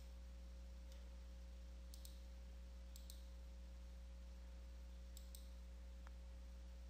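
Near silence: a steady low electrical hum with a handful of faint computer mouse clicks, spaced a second or more apart.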